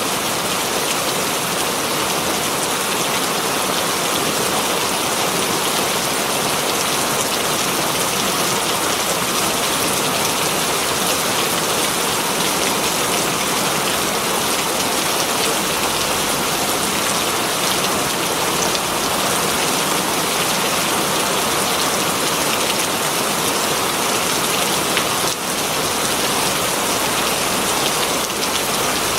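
Very heavy rain pouring steadily onto green leaves, a dense unbroken hiss of many drops.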